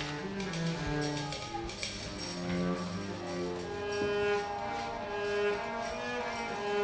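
Free improvisation by a small ensemble: a cello bowing long notes among other overlapping held tones that shift slowly in pitch.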